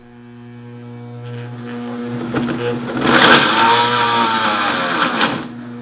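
Countertop blender motor starting up and building in loudness over the first couple of seconds, then grinding frozen pineapple chunks, pineapple juice and vanilla ice cream. From about three seconds in it gets louder and rougher, its pitch dipping and rising as the frozen chunks load the blade.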